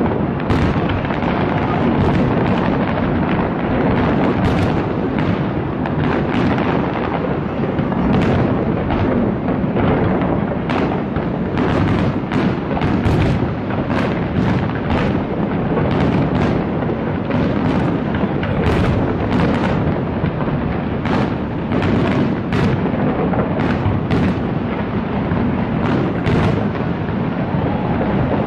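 Dense, unbroken fireworks barrage from pyrotechnics fired off a skyscraper: many sharp cracks and bangs, several a second, over a continuous low rumble of booms running together.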